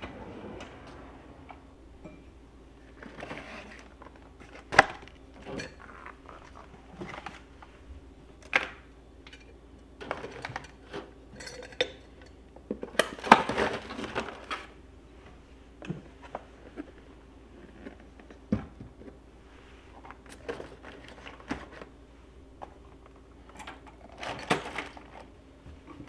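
A kitchen drawer pulled open, then utensils, plastic containers and wire baskets clinking and knocking as they are handled and sorted inside it, in scattered clatters, the loudest about five seconds in and around thirteen to fourteen seconds.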